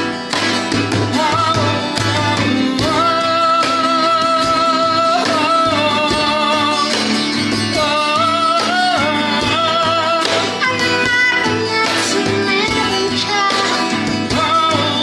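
A song: a voice singing long, wavering held notes over guitar accompaniment.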